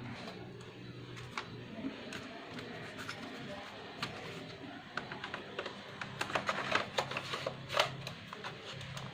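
Small clicks and rattles of laptop case parts and screws being handled and fitted during reassembly, thickest about five to eight seconds in, over a low steady hum.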